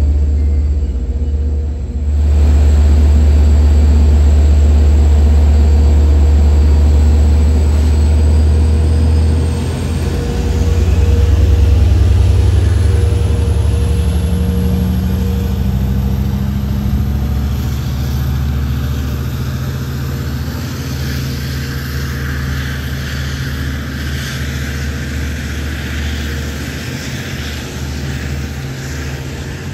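Long Island Rail Road DE30AC diesel locomotive's engine running with a low drone. About halfway through its engine note rises as it pulls the train away, and the sound then fades steadily as the train recedes.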